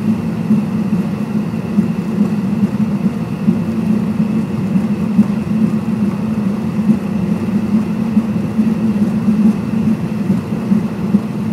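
Cabin noise of a Cessna Citation X taxiing: its rear-mounted Rolls-Royce AE 3007 turbofans running at low power, a steady low drone with a thin high whine over it.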